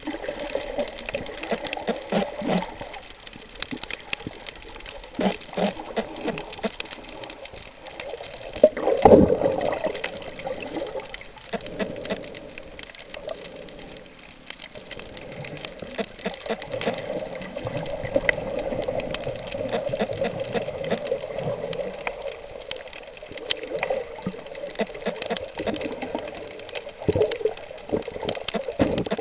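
Underwater sound picked up by a snorkeler's submerged camera: a continuous water rush full of small scattered clicks and crackles, swelling and fading, with a louder whoosh about nine seconds in.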